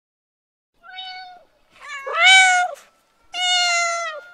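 Kitten meowing three times after a moment of silence: a faint short meow, then a loud one, then a longer one.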